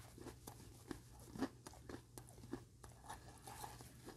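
Faint, irregular crunching of a person chewing a crisp freeze-dried oyster, a dozen or so small crunches.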